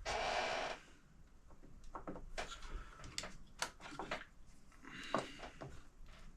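Hands working on an RC truck's steering servo: a short scrape about a second long, then scattered light clicks and taps of small parts and tools being handled.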